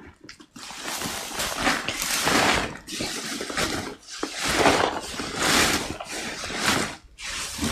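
Chopped grass fodder rustling and scraping as it is scooped by hand from a pile, in a series of swishes each about a second long.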